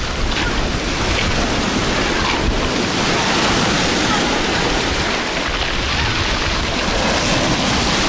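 Sea surf breaking and washing over a pebble shore close by, a steady loud rush of water.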